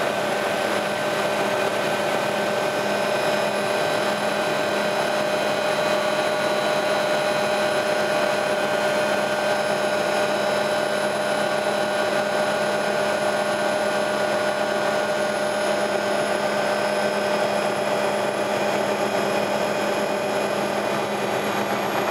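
Helicopter turbine and rotor noise heard from inside the cabin: a steady, even drone with a thin high whine running over it.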